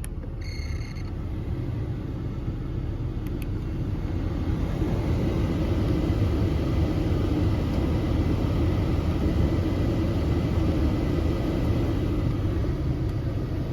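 Audi A6 C5 heater blower fan running steadily at speed 4 with a rushing airflow hum and no squeak, a little louder over the first few seconds. A short beep sounds just after the start.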